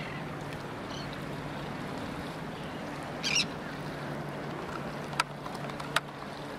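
Open-water outdoor ambience: a steady wash of wind and water noise with a low, steady hum underneath. A short high-pitched sound comes about three seconds in, and two sharp clicks come near the end.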